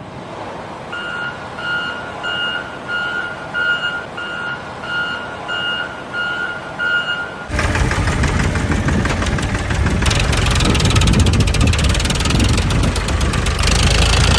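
Vehicle reversing alarm beeping evenly, about three beeps every two seconds, over a low engine rumble. About halfway through, a much louder, dense clattering noise takes over.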